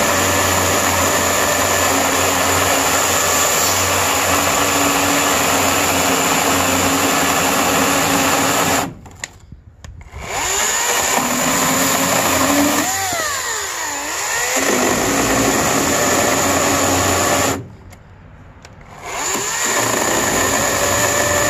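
EGO 14-inch cordless electric chainsaw running and cutting through a wooden beam with a steady electric whir. Twice the trigger is let go and the motor winds down, goes quiet for about a second and then starts up again. Between the two pauses the motor's pitch wavers up and down.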